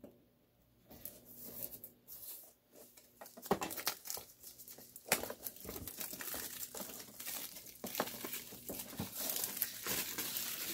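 Clear plastic wrap being torn and peeled off a small cardboard product box, crinkling and crackling. It starts about a second in with a quick run of sharp crackles and tearing.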